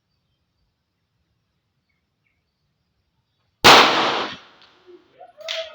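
A single pistol shot about three and a half seconds in: one sharp crack with a short ringing tail.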